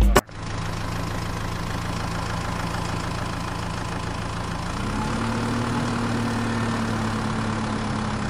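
Small electric motor of a homemade toy tractor running with a steady whirring hum. Its pitch steps up slightly about five seconds in.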